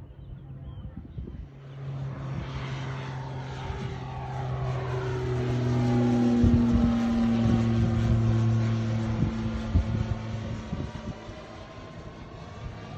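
Electric Pipistrel light aircraft's motor and propeller hum during take-off: it swells in about a second and a half in, drops in pitch as the plane passes at its loudest, then fades away.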